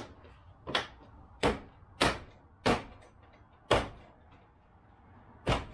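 Seven sharp knocks of a mallet striking the plastic front bumper cover of a Jeep Grand Cherokee, driving it onto its mounting clips. The blows come about every half second to a second, with a longer pause before the last.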